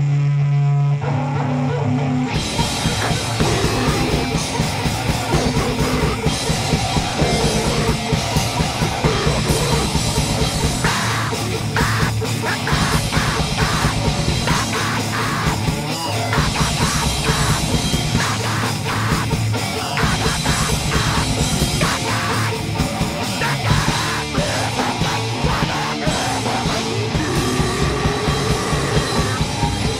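Live heavy metal/punk band playing with heavily distorted guitars, bass, fast drums and shouted vocals, recorded straight off the mixing desk. It opens on a held low note, and the full band crashes in about two seconds in.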